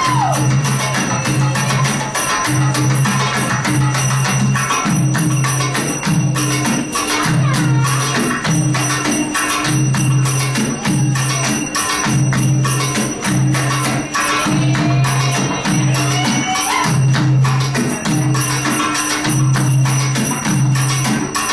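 Belly dance music with busy percussion and tambourine-like jingling over a low bass note that comes in short repeated blocks, with a melody weaving above.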